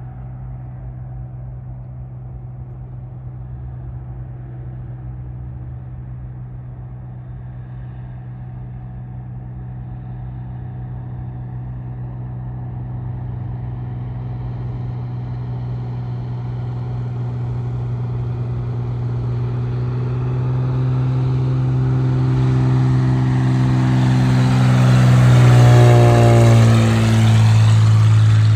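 Single-engine floatplane's engine and propeller droning on landing approach, growing steadily louder as it comes in low over the water. The pitch drops as it passes close by, near the end.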